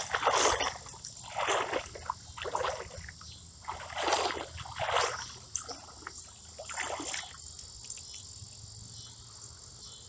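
A person wading through a shallow creek, with a splash of water at each stride about once a second, stopping after about seven seconds. Insects trill steadily and high in the background throughout.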